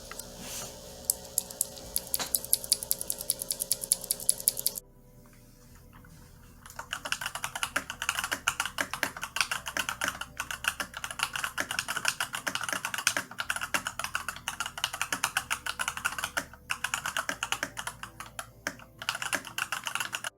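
Typing on a Varmilo MA108 mechanical keyboard with EC v2 Sakura switches. Scattered keystrokes for the first few seconds, a pause of about two seconds, then fast continuous typing.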